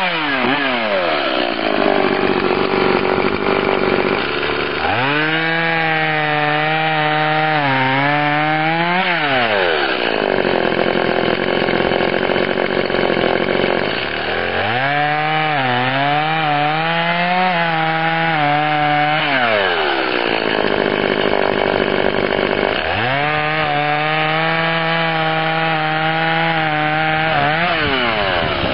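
Stihl MS 180 C two-stroke chainsaw making three cuts through a log, each lasting about four seconds. The engine note drops and holds steady as the chain bites into the wood, then rises again between cuts.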